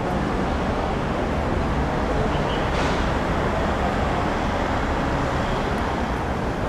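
Steady road-traffic noise, a constant low rumble with no clear separate events.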